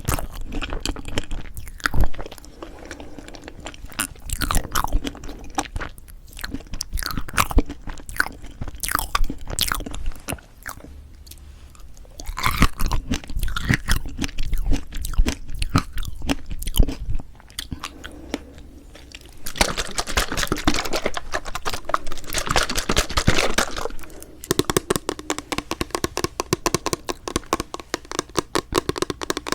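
Close-miked chewing and wet mouth sounds of someone eating strawberry chocolate fresh-cream cake, with irregular clicks and smacks and a run of fast clicking near the end.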